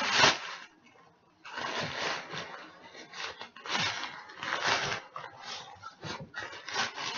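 Handling noise from a folded camping chair and its carry bag. There is a sharp rustle at the start, then after a short pause a run of irregular rustling and scraping.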